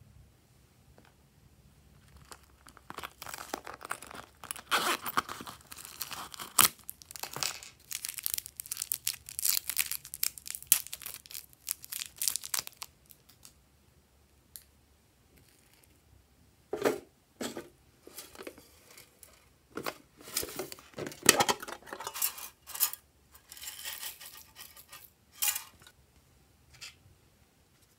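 A small plastic packet of slime add-ins crinkling and rustling as it is handled and torn open, in irregular bursts of crackling.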